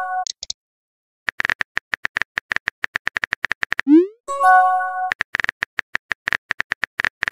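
Texting-app sound effects: a message chime fades out, then comes a run of rapid keyboard tap clicks, about eight a second. Near the middle a short rising swoop marks a message being sent, followed by a brief chord-like chime as the new message pops up, and then the tap clicks start again.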